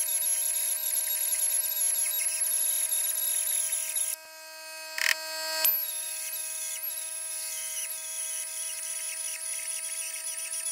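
Power drill running at a steady speed, drilling out the rivets in a car door's inner metal panel. It stops about four seconds in, with a couple of sharp clicks, then starts again and its whine slowly drops in pitch.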